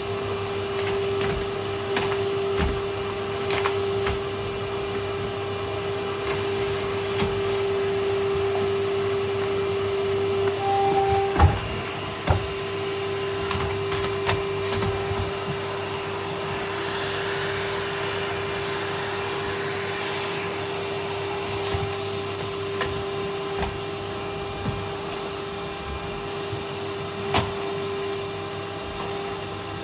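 Vacuum cleaner running steadily with a constant whine, with scattered clicks and knocks; the loudest knock comes about eleven seconds in.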